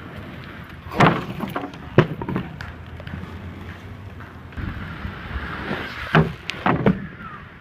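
Inline skate wheels rolling on wet pavement, with sharp knocks of skates landing and striking a wooden picnic table: two loud knocks about one and two seconds in, and two more near the end.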